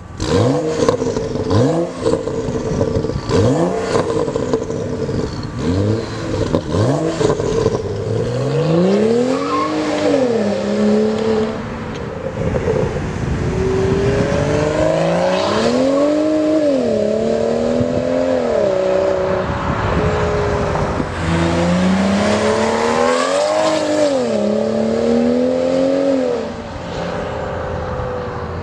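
BMW N55 3.0-litre turbocharged straight-six of a 2011 335i with a catless downpipe: a series of quick free revs first, then the car pulling hard through several gears, each pull rising in pitch and dropping at the shift. It fades near the end as the car goes away.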